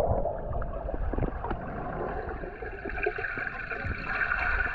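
Water gurgling and sloshing around a GoPro in the water while snorkelling, with a low rumble and scattered small clicks; a hissing band grows louder about three seconds in.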